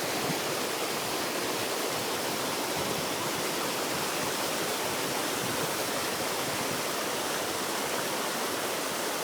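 Steady rushing of a waterfall, an unbroken wash of falling water.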